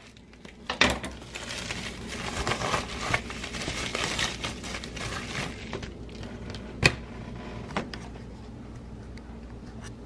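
A paper package being opened and handled by hand: several seconds of rustling, crinkling and tearing, with a few sharp knocks, one near the start and another about seven seconds in, after which the rustling dies down.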